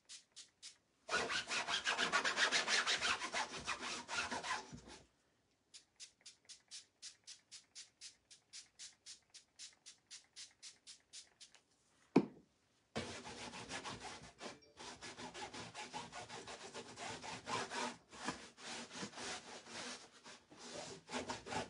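A rag rubbing back and forth over a painted burlap board, working sprayed dye into the surface. It comes in quick strokes of about three or four a second, with stretches of dense scrubbing. There is a single sharp knock about twelve seconds in.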